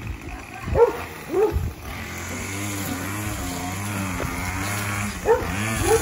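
Dog barking at a running string trimmer: two sharp barks about a second in, then the trimmer starts running steadily about two seconds in, and two more barks come over it near the end.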